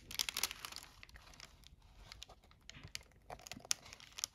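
Clear plastic protective film on a diamond painting canvas crinkling softly in irregular small crackles as fingers lift and handle it.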